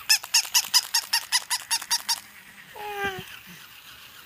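Battery-operated toy puppy yapping: a rapid, even run of high squeaky yips, about seven a second, lasting about two seconds. About a second later comes one short call that falls in pitch.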